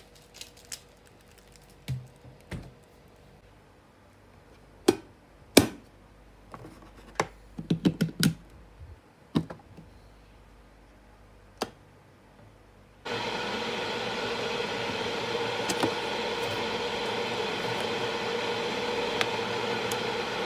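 Scattered clicks and knocks of household objects being handled. About two-thirds of the way in, a steady hiss starts suddenly and holds at an even level.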